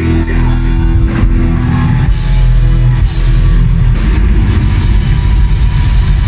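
Black metal band playing live at full volume: distorted electric guitars, bass and drums. Held chords give way about two seconds in to a faster, denser passage.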